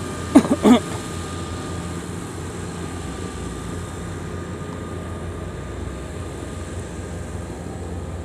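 Steady drone of farm machinery's engine running in the rice field, even in level throughout. A short pitched call cuts in briefly about half a second in.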